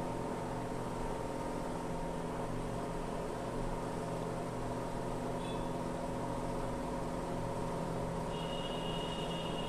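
Steady mechanical hum from a machine running in the background, holding several even tones without change. A faint high-pitched tone sounds briefly about halfway through and again near the end.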